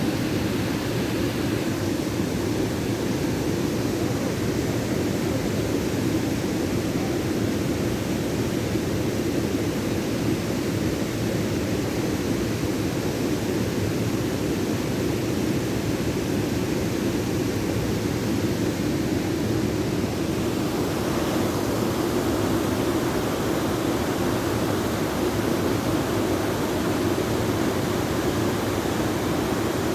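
Waterfall rushing in a steady, even roar of falling water, turning a little brighter and hissier about two-thirds of the way through.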